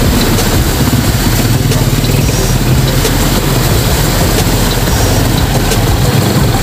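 Motorcycle engine of a tricycle (motorcycle with sidecar) running steadily as it rides through shallow floodwater, with a constant rush of noise over a low engine hum.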